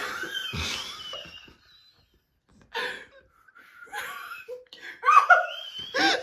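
A person laughing in short breathy bursts while trying to get through a snort, raspberry, whistle sequence. The loudest laughing comes near the end.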